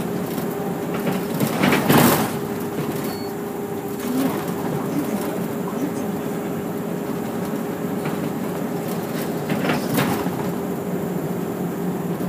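Cabin noise inside a route bus: the engine runs with a steady drone under a general rumble and light rattling. Two louder knocks or jolts come about 2 s and 10 s in.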